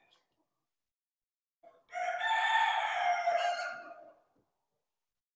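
A rooster crows once, a single call about two and a half seconds long that begins about two seconds in.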